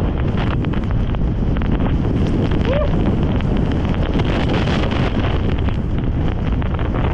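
Wind rushing over the GoPro Hero11's microphone while skiing fast downhill, with the rapid scraping and chatter of skis on snow. A brief rising squeak cuts through about three seconds in.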